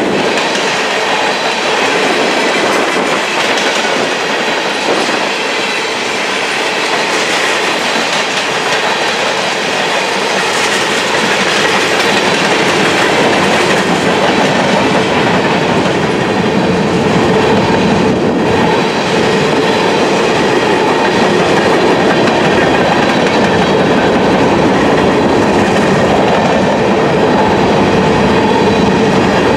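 Covered hopper cars of a freight grain train rolling past, their steel wheels making a steady noise on the rails that grows a little louder about halfway through.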